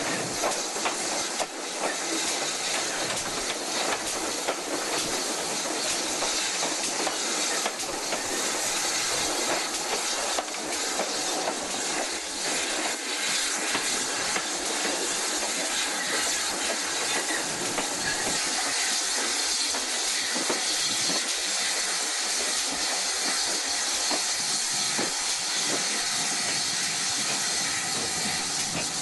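Steam locomotive running, heard from its footplate: a steady hiss of steam with the wheels clattering over the rails.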